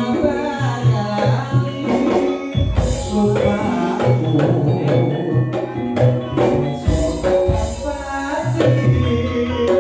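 Campursari ensemble music: Javanese gamelan-style mallet percussion ringing over a regular drum beat with a steady low pulse.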